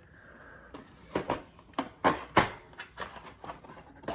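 A toy in its cardboard-and-plastic box being handled and set back down: a string of light, separate knocks and rustles after about a second of quiet.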